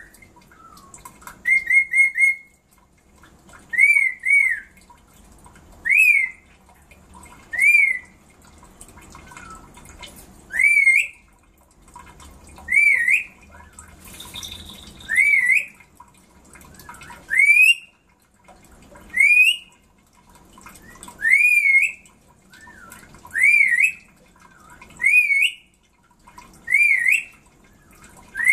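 Black-capped lory giving a series of short, shrill, rising whistles, about one every two seconds. A brief hiss comes near the middle.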